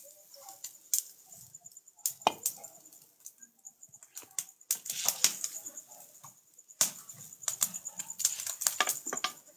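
Irregular clinks and knocks of metal cooking pots and plates being handled and set down, some sharp and loud, over a faint steady high-pitched tone.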